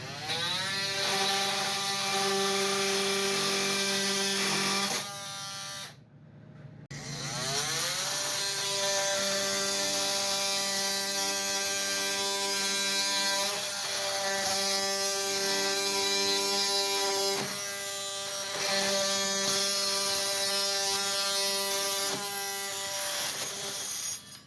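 Oscillating multi-tool with a bi-metal blade running and cutting into screws: the motor winds up with a rising whine, runs as a steady buzzing drone, stops about five seconds in and starts again a couple of seconds later, its pitch sagging briefly a few times as the blade bites under load.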